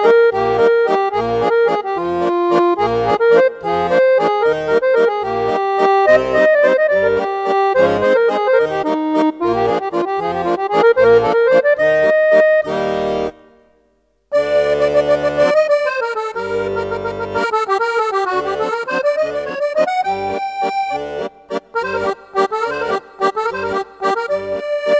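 Background music: an accordion tune over a regular bass-and-chord beat. It fades out about thirteen seconds in and starts again a second later.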